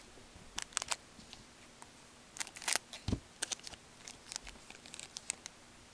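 A hockey card pack being torn open and its wrapper crinkled in the hands: scattered sharp crackles and crinkles, with one low thump about three seconds in.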